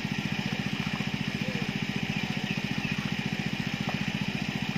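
A small engine running steadily at an even speed, with a fast, regular chugging pulse.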